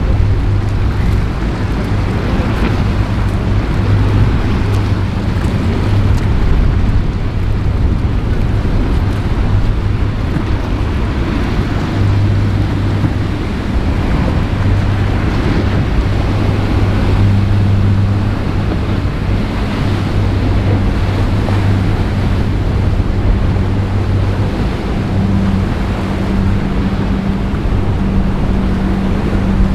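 Large motor yacht's engines running with a steady low drone, heavier in the second half as the boat comes close, over the rushing wash of its hull through breaking waves. Wind buffets the microphone.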